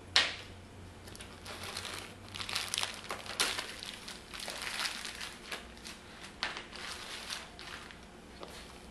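Irregular rustling and crinkling as the bag's contents are handled and shifted in and out of a zippered pocket of a Maxpedition nylon bag, with a sharp knock just after the start.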